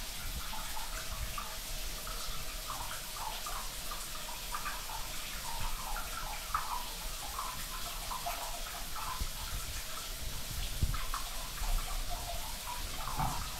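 Overhead shower running: water sprays down and splashes steadily onto a tiled shower floor.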